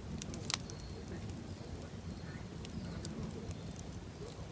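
Cedar and cypress bark burning in an incinerator basket: a low, steady rumble of flame with scattered crackles and one sharper pop about half a second in.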